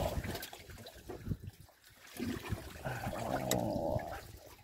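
Water splashing and trickling around a small wooden fishing boat, with scattered knocks.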